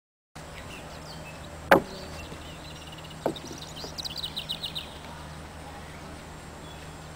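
A horse's hooves knocking on a wooden seesaw plank: one sharp, loud knock a couple of seconds in and a softer one about a second and a half later. A bird chirps a quick run of notes in between, over a steady low hum.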